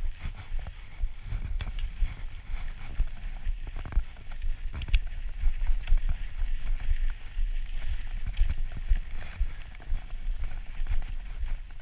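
Mountain bike descending a dry dirt trail: a steady low rumble of wind and vibration on the camera's microphone, with irregular clatter and knocks as the bike rattles over bumps.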